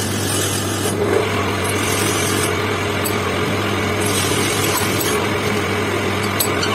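Metal lathe's motor running steadily while the four-jaw chuck is tightened by hand with a chuck key, with a few light metallic clicks near the end.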